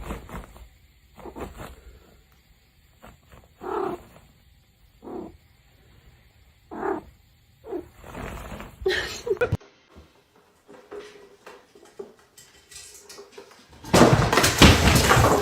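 Domestic cat vocalising: a string of short, separate calls spaced about a second apart. Near the end comes a loud noisy stretch of about a second and a half.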